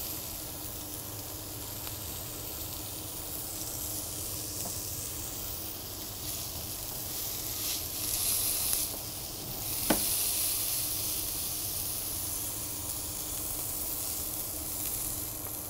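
Beef fillet sizzling steadily as it sears in a hot cast-iron grill pan. There is one sharp click about ten seconds in.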